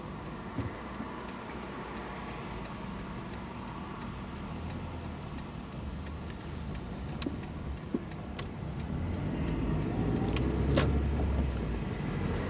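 Car engine and road noise heard from inside the cabin while driving. From about nine seconds in it grows louder and the engine note rises as the car speeds up, with a few faint clicks along the way.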